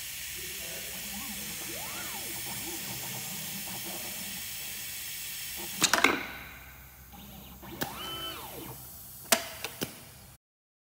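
Steady compressed-air hiss from the cell's pneumatic gripper, under the whine of the robot arm's stepper motors rising and falling in pitch as it moves. About six seconds in, a few sharp pneumatic clicks and the hiss stops; the motors whine again around eight seconds, with two more clicks near the end.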